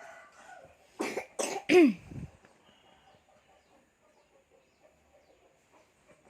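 A small child coughing: a quick run of three coughs about a second in, the last trailing into a short voiced sound that falls in pitch.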